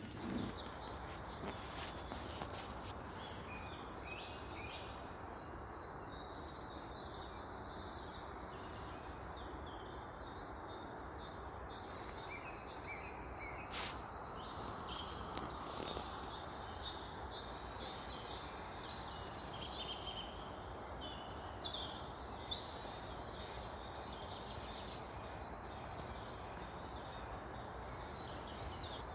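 Small songbirds chirping and twittering in many short calls, over a steady outdoor background hiss.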